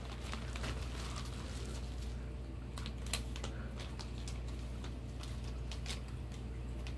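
Scattered light clicks and crinkles of plastic packaging being handled, over a steady low hum.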